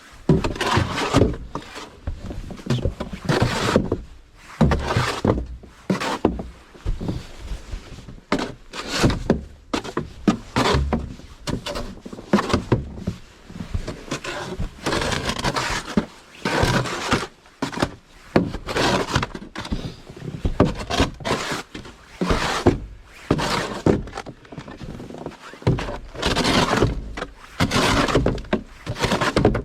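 Snow shovel scraping and knocking against snow and pavement in repeated irregular strokes, about one every second or two.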